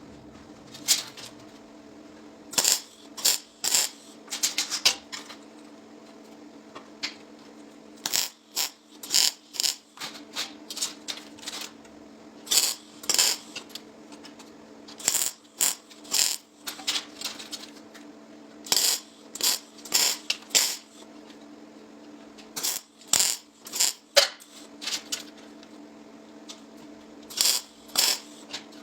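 Welding arc crackling in short bursts, one after another in clusters, over a steady electrical hum.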